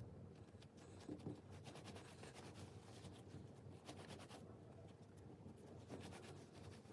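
Faint rubbing and light scratchy taps of hands folding rolled mantou dough on a work surface.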